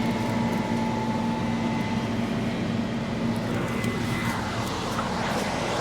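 A large engine running steadily, a steady hum over a noisy rush, typical of harvest machinery idling in the field.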